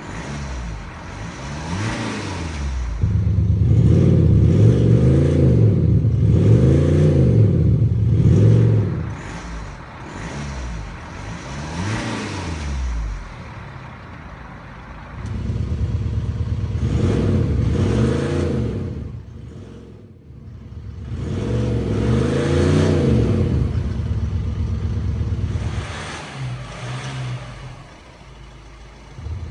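BMW X5 M50d diesel with an Active Sound module playing an artificial exhaust note through actuators at the tailpipes. The engine is revved again and again, its pitch climbing and falling with each rev, in several bursts with quieter running between them.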